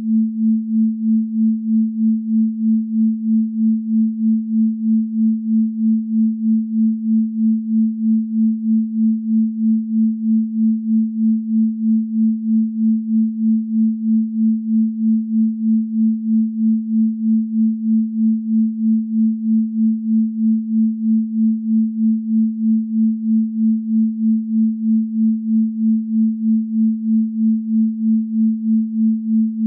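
Pure sine tone at 221.23 Hz, the so-called Venus frequency, held at one pitch with an even pulse of a little over two beats a second.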